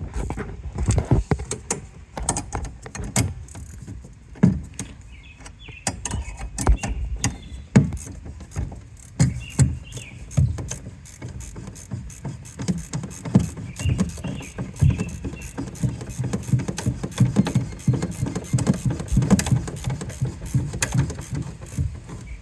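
Ratcheting wrench clicking in quick runs as a nut is tightened on a bunk bolt, with scattered knocks from tools being handled.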